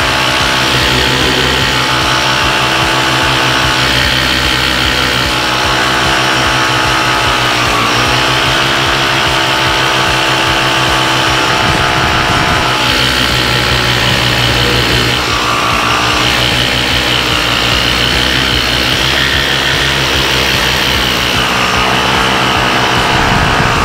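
Paramotor engine and propeller running steadily in flight; the engine note dips briefly about eight seconds in and again around fifteen seconds.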